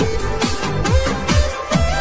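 Electronic dance music with a steady, punchy kick-drum beat under a synth melody.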